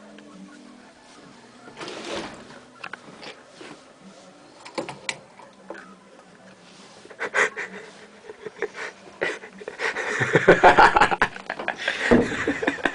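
Stifled, breathy snickering laughter in short bursts, getting louder and more continuous near the end, with a few clicks and rustles from handling the camera.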